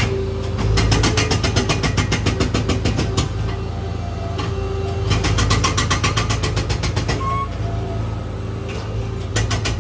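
Bobcat skid-steer loader running with a steady low engine drone while its bucket cuts up and lifts lawn sod. Two long stretches of rapid, even clatter, about ten clicks a second, and a short burst near the end.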